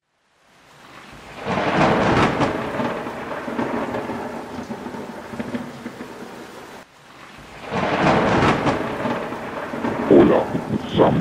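Thunderstorm sound effect: rain with rolling thunder. A first long roll builds up about a second and a half in and slowly dies away. A second roll comes in about seven and a half seconds in, with sharper cracks near the end.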